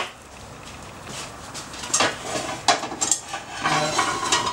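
Kitchen clatter: a sharp click, then irregular clinks and knocks of dishes, pans and a knife on a wooden cutting board, thickest in the last two and a half seconds.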